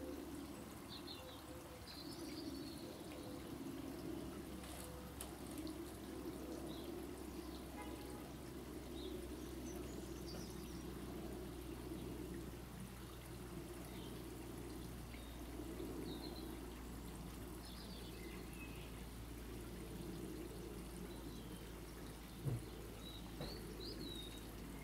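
Garden birds chirping now and then over a steady low rushing background, with one brief thump near the end.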